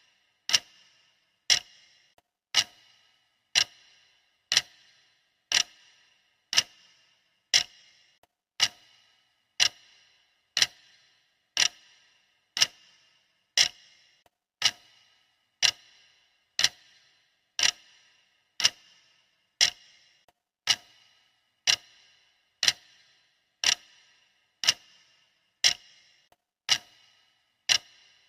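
Clock ticking sound of a countdown timer: sharp, even ticks about once a second.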